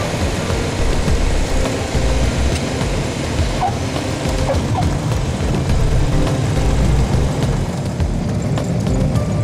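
Steady cabin noise of a Piper PA-28 Archer's engine and propeller with wind rush, heard through the landing and touchdown on the runway.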